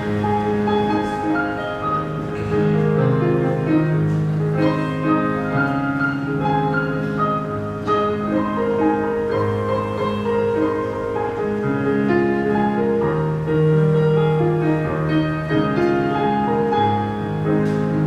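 Instrumental interlude of a ballad: piano or electric keyboard playing sustained chords and a melody, without singing.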